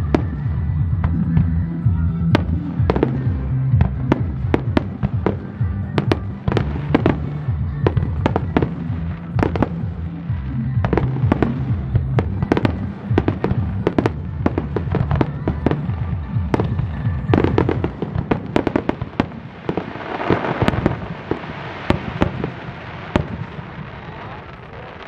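Aerial firework shells bursting in a rapid starmine barrage, dozens of sharp bangs one after another, over music with sustained low notes that fades away about fifteen seconds in. About twenty seconds in, a dense rushing noise swells for a few seconds among the bangs.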